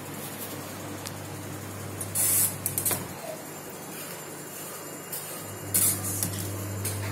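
Steady low electrical hum from aquarium equipment, getting louder a little past halfway. Two short bursts of hissing, rubbing noise come about two seconds and six seconds in, with a few light clicks.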